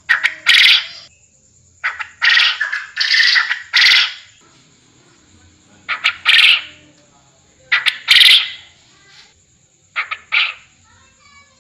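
Quail lure call: loud, harsh double calls, a brief note followed by a longer one, repeated about every two seconds.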